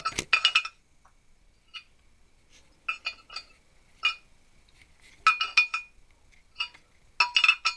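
Loose steel jaws of an old four-jaw lathe chuck clinking against each other and against the chuck's face as they are handled and set down. The sound comes as a run of short metallic clinks, each ringing briefly, in about six small clusters.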